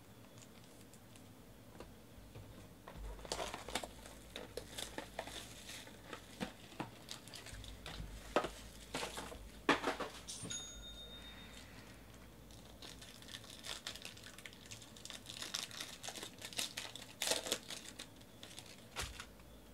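Foil wrapper of a trading-card pack crinkling and tearing as it is opened by hand, in two spells of crackling. A brief high beep sounds about halfway through.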